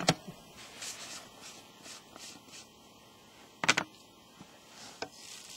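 Plastic containers being handled while Tannerite powder is loaded into a plastic bottle: light repeated taps and rustles, then a sharp double plastic knock about three and a half seconds in and a smaller click near the end.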